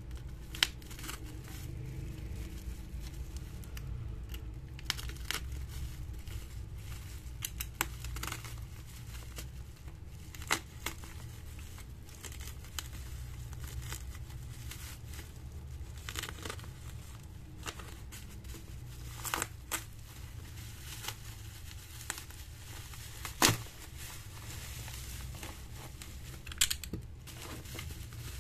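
Black bubble-wrap plastic packaging being slit with a snap-off utility knife and torn and peeled open by hand: irregular crinkling, tearing and crackling, with a few sharp louder snaps, over a steady low hum.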